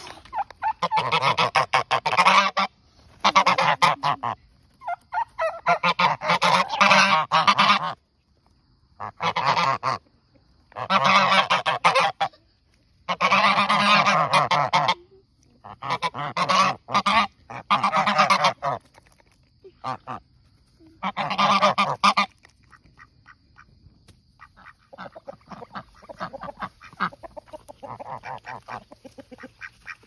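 Domestic geese honking in a string of loud bursts, each one to two seconds long, with short silences between. After about twenty-two seconds the honking stops and only quieter, broken sounds remain.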